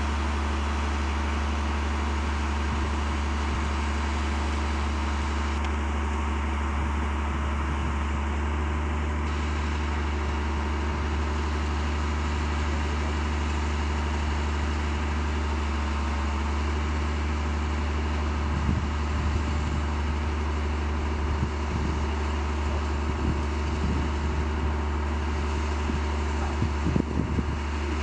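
Engine of a rail-mounted overhead-line maintenance vehicle idling steadily, a low even drone. Irregular low thumps come in during the second half.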